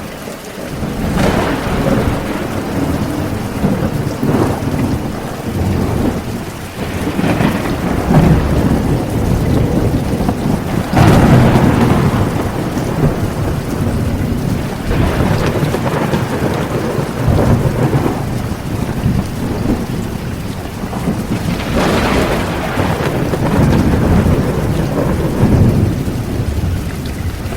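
Heavy rain pouring steadily with repeated low rolls of thunder. The loudest roll comes about halfway through, and another swells near the end.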